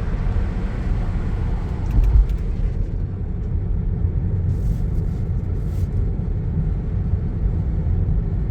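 Car on the move, with a steady low rumble of road and engine noise and a brief louder bump about two seconds in.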